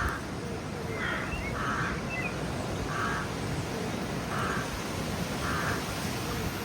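A crow cawing repeatedly, about seven harsh calls at an uneven pace, with a few brief chirps from small birds.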